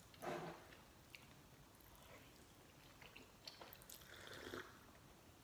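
Mostly quiet, with faint eating sounds of instant noodles: small mouth clicks of chewing and a soft slurp about four seconds in. A brief louder sound comes right at the start.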